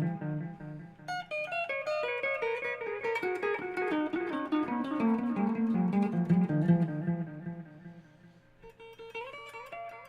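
Guitar played through a Caline Ghost Rain reverb/delay pedal: a run of picked single notes whose tails ring on and overlap. The phrase fades out about eight seconds in, and a quieter new phrase starts about a second later.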